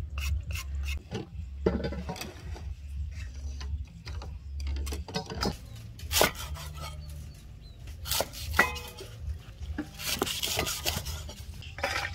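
Food-preparation sounds: a hand shredder rasping strips off a vegetable into a steel bowl, a cleaver knocking on a wooden chopping board over lemongrass, and steel bowls clinking. These come as scattered knocks and scrapes, with the sharpest knocks about six and eight seconds in and a longer rustling scrape about ten seconds in.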